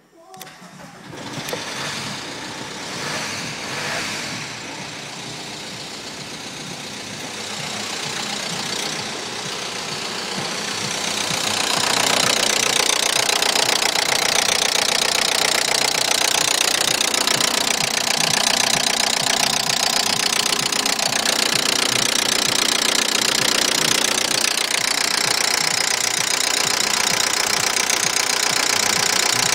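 VW Golf Mk3 1.9 TDI four-cylinder turbodiesel starting and then idling steadily with a diesel knock. It sounds muffled at first and grows louder and clearer about twelve seconds in, heard at the open engine bay.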